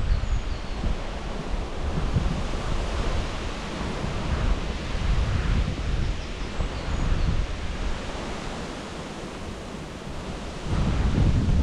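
Wind buffeting the microphone in gusts, a heavy low rumble over a steady rushing hiss, easing off for a couple of seconds and then surging again near the end.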